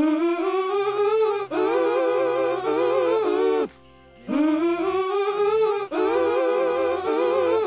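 Background music: a wordless voice sings a slow melody with vibrato in four phrases, each sliding up into its note, over a quiet sustained low note. There is a short pause about halfway through.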